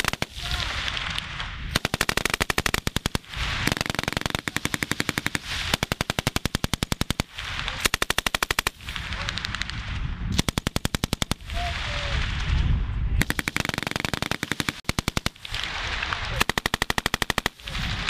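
M240L 7.62 mm machine gun firing in repeated short bursts of rapid automatic fire, about eight bursts of one to two seconds each with brief pauses between, each burst followed by a rolling echo.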